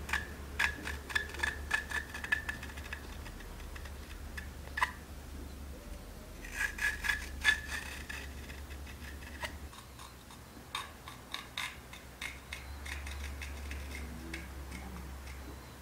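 A hooked metal carving tool scraping grooves into the inner wall of an unfired porcelain coffee dripper. It makes short, scratchy strokes, several a second, with a thin squeal, coming in bursts as the tool digs and lifts.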